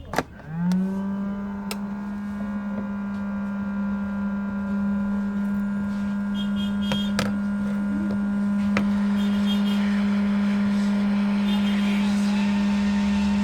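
A small electric motor switched on with a click, spinning up to speed within about a second, then running with a steady hum that gets slightly louder and rougher toward the end.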